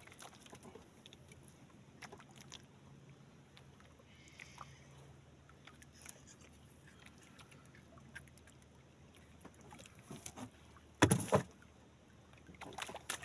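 Small knocks and handling noises aboard a wooden outrigger fishing canoe, over a faint steady low hum, with one loud thump about eleven seconds in.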